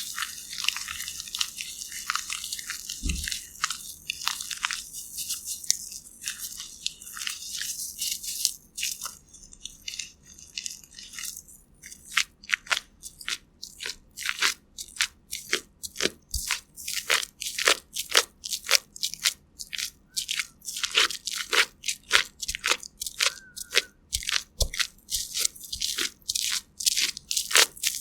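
Crisp ASMR crunching sounds: a dense, scratchy crackle for the first several seconds, then a long run of separate crisp crunches, about two or three a second.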